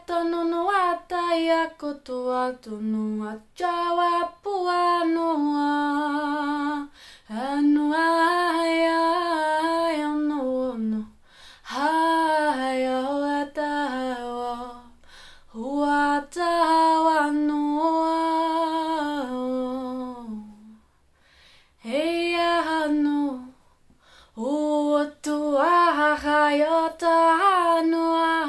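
A woman singing light language: wordless, improvised vocal phrases several seconds long, sliding between notes with vibrato, with short breaths between phrases. There is no accompaniment.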